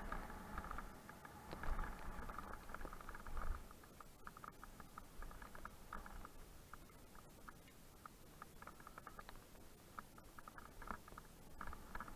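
Mountain bike rattling and clicking as it rolls down a rocky dirt and gravel trail, with the tyres crunching over loose stones. It is busier and louder for the first three and a half seconds, then thins to sparser clicks.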